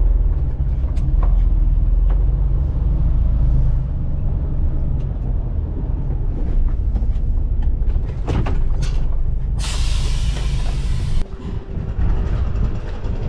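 Diesel truck engine idling with a steady low rumble and scattered clicks and knocks. About ten seconds in, a burst of air hiss from the truck's air brake system lasts about a second and a half, and after it the rumble drops.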